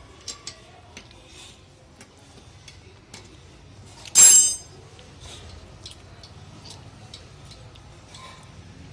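Metal tools and parts clinking during the dismantling of an air compressor: scattered light clicks, with one loud ringing metal clang about four seconds in.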